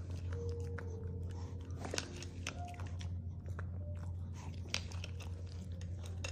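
Maltese dog crunching dry kibble fed from the hand, in quick, irregular bites, over a steady low hum.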